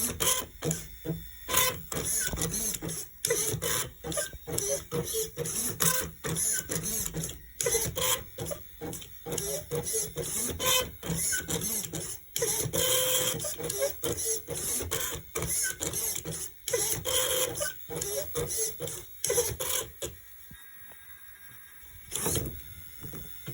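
Servo-motor arms of a 4x4x4 Rubik's Cube-solving robot turning the cube in rapid, irregular bursts of whirring and clacking, several moves a second, as it works through a solve. The moves stop about twenty seconds in, and one short burst follows a couple of seconds later.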